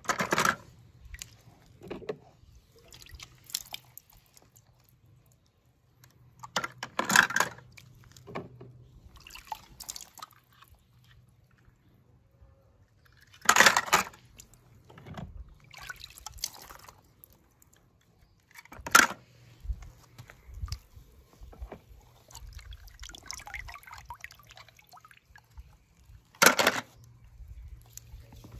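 Water splashing and dripping as a hand dips into and stirs a plastic tub of water. There are five louder, sharp splashes a few seconds apart.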